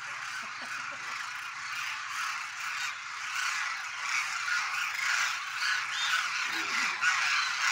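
A large flock of demoiselle cranes calling overhead in flight: a dense chorus of many overlapping calls that grows louder from about four seconds in.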